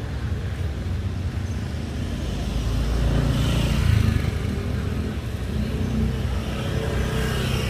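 Road traffic, motor vehicles running past, with one passing closer and louder about three to four seconds in.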